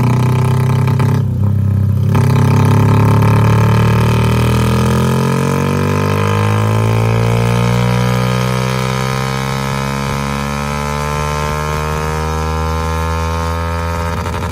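Yamaha Y15ZR single-cylinder four-stroke engine pulling under load on a chassis dyno at wide throttle. Its pitch rises slowly and steadily as the revs climb, with a brief easing just over a second in.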